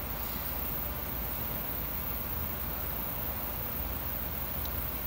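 Steady low background noise with no distinct sound events, and one faint tick near the end.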